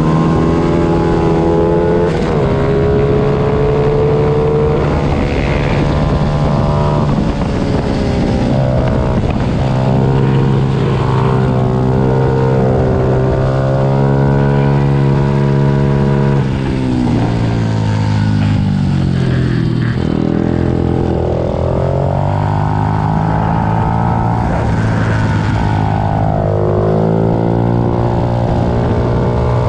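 Several small 90 cc pitbike engines running at high revs during a race, overlapping at different pitches, with the pitch dropping and climbing again a few times.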